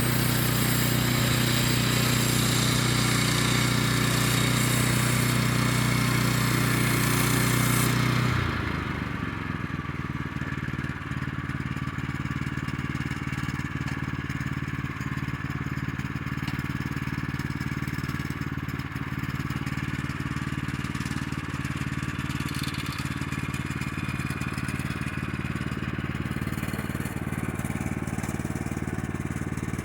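Small gas engine of a portable band sawmill running while the band blade cuts through a cherry log, with a loud high hiss from the cut. About eight seconds in the cutting hiss stops and the engine runs on steadily, a little quieter.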